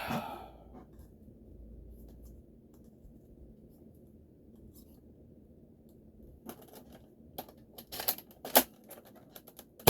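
A few seconds of faint room hum, then a run of sharp plastic clicks and clacks as a Nerf Zombie Strike Sledgefire shotgun blaster and its shell are handled, with a louder clack right at the end.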